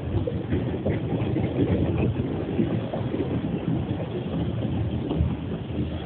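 Steady low rumble of a vehicle on a slushy road, heard through a security camera's small microphone.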